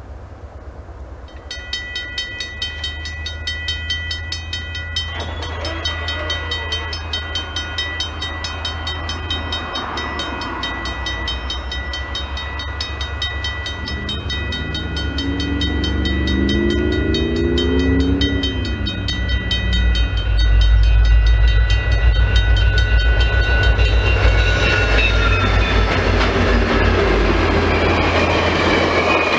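VIA Rail's The Canadian (train No. 1) approaching and passing: a crossing warning bell rings rapidly from about a second and a half in while the diesel locomotives grow louder, and the horn sounds about halfway through. The locomotive rumble peaks about twenty seconds in, then the stainless-steel passenger cars roll by with a rushing rattle of wheels.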